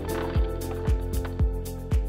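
Background music with a steady beat: a low drum hit about twice a second under held synth notes.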